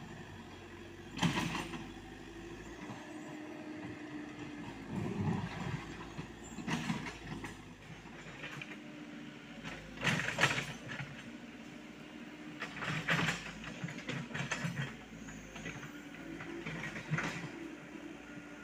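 Komatsu PC78US mini excavator's diesel engine running with a steady hum. About six sharp knocks and scrapes come every few seconds as the machine works.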